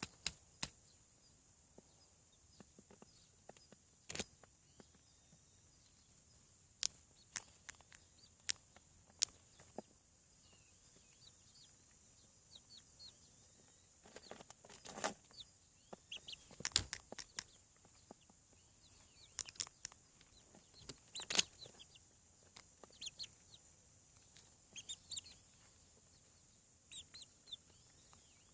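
Young chickens peeping and clucking in short, scattered calls, with sharp clicks here and there and a faint steady high hiss underneath.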